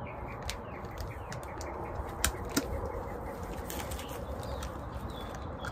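Plastic wrapping and bubble wrap rustling and crinkling as a doll is lifted out of a cardboard box, with a few sharp crackles. Birds chirp faintly in the background.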